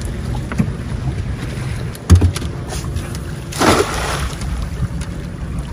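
Cast net slapping down on the water about three and a half seconds in, a short splashing rush. There is a sharp thump a second or so earlier, over a steady low rumble.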